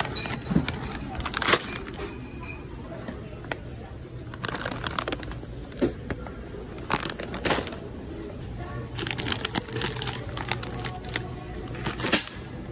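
Plastic snack bags crinkling and rustling in irregular bursts as they are handled and put into a wire shopping cart.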